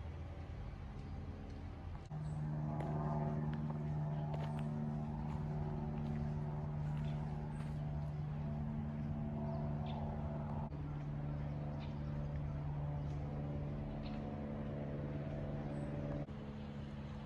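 A steady, low engine hum with a constant pitch and overtones. It starts abruptly about two seconds in and cuts off shortly before the end, with a few faint high chirps or ticks over it.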